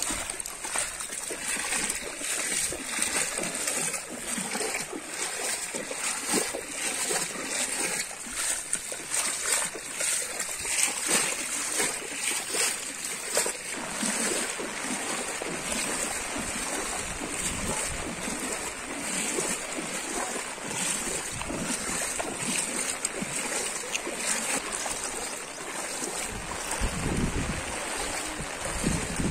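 Muddy river floodwater rushing over a road and fields, a steady noise of flowing water. Wind buffets the microphone near the end.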